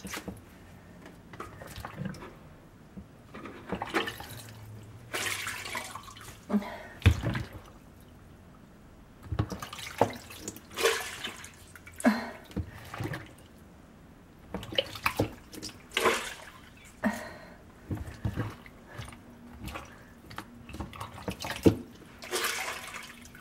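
Sponge sopping up standing water from a dishwasher's filter sump, with water dripping and splashing in irregular bursts.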